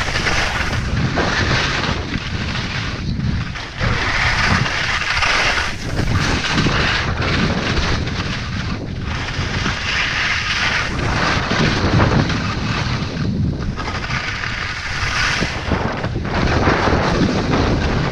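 Wind buffeting a GoPro microphone during a fast ski run, with the hiss and scrape of skis on hard, choppy snow swelling with each turn.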